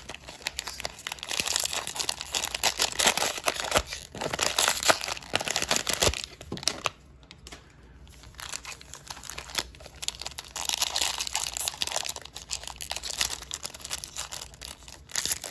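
Plastic trading-card pack wrapper being torn open by hand, crinkling and tearing in long stretches, with a quieter pause of about two seconds past the middle.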